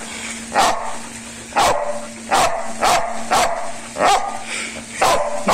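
A dog barking repeatedly during play, about one bark a second.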